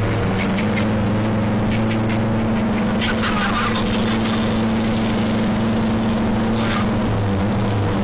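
Car engine and road noise heard from inside the cabin while driving at steady speed, with a steady engine hum whose pitch shifts about seven seconds in.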